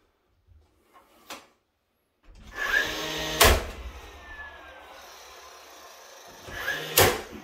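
DeWalt 18-gauge cordless nailer driving nails into wooden door trim: two sharp shots about three and a half seconds apart, each preceded by a short whir of the tool's motor, with a steady hum between them.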